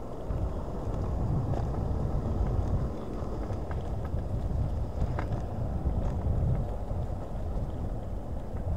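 Wind rumbling on the microphone of a Hiboy S2 Pro electric scooter in motion, swelling and easing in gusts, with road noise underneath.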